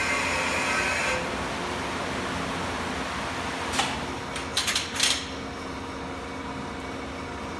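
Thermoforming machine running through its cycle as its upper platen rises: a steady mechanical hum and hiss that drops a little about a second in. Around four to five seconds in come one short, sharp burst of hiss and then a quick cluster of several more.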